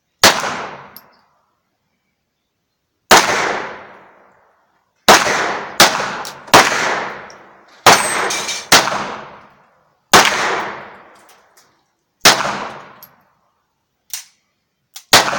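Margolin .22 LR target pistol being fired in slow, deliberate single shots, about nine in all at uneven intervals of one to three seconds, each crack followed by an echo dying away over about a second. Fainter shots come in near the end.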